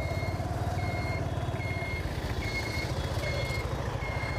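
A high electronic beep repeating evenly, about once every 0.8 seconds, over the steady low running of a motorbike engine.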